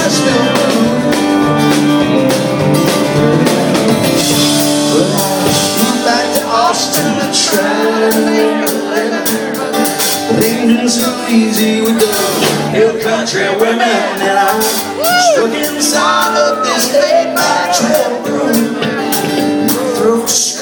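Live country-rock band playing: acoustic and electric guitars, bass guitar and drums, with steady cymbal hits and bending lead notes through the middle and later part.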